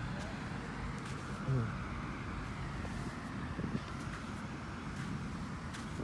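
Steady outdoor background noise: wind on the microphone over a low rumble like distant traffic, with a brief low sound about one and a half seconds in.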